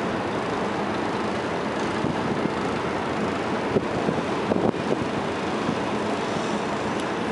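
SM42 diesel-electric shunting locomotive running as it moves slowly with a rake of passenger coaches, with a few short clanks bunched near the middle.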